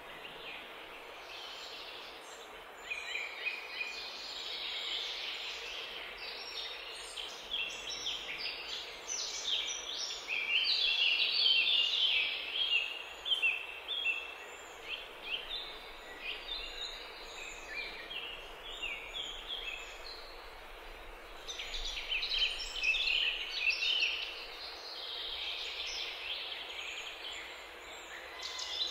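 Birds chirping and calling in a dense, high-pitched chatter that starts a few seconds in and swells in bursts with short lulls, over a steady outdoor hiss.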